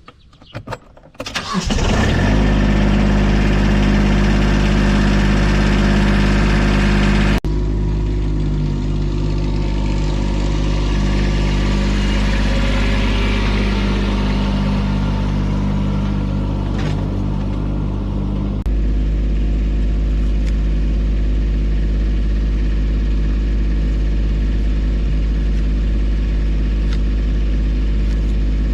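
A combustion engine running steadily under load, coming up about a second and a half in. Its sound changes abruptly twice, at cuts between clips.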